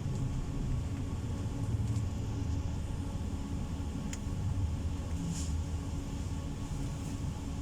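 Steady low rumble of a PESA tram running, heard from inside the car, with a sharp tick about four seconds in and a brief high hiss a second later.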